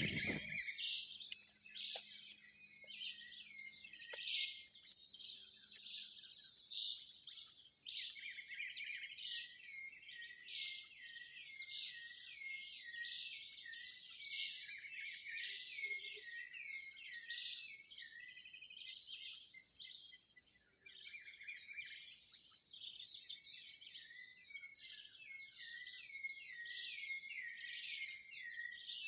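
Dawn chorus of many small birds chirping and calling over one another, with a steady high insect trill running underneath.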